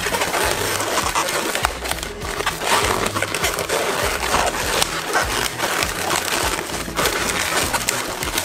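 Inflated latex modelling balloons squeaking and rubbing against each other as they are twisted and locked together by hand, over background music.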